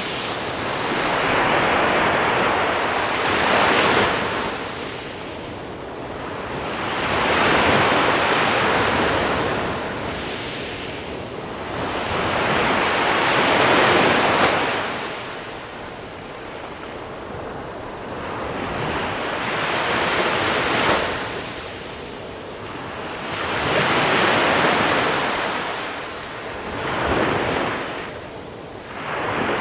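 Sea waves breaking and washing over a small-pebble shore. Each surge swells and then fades, about six in a row, one every four to six seconds.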